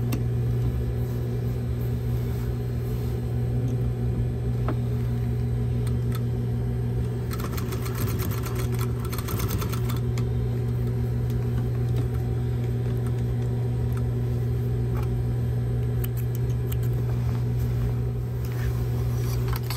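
Electric sewing machine running steadily at an even speed while stitching a seam, with a few faint clicks from fabric handling.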